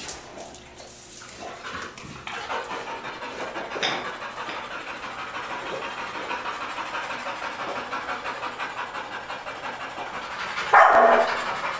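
Dog panting rapidly and rhythmically, then a sudden loud bark near the end.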